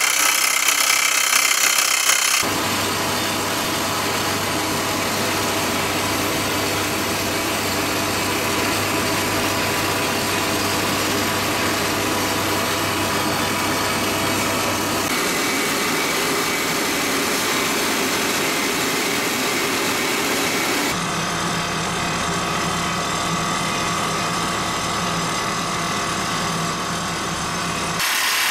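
Furukawa crawler rock drill rig running and drilling into rock: a loud, dense mechanical din of the engine and the working drill, steady within each stretch but changing abruptly a few times.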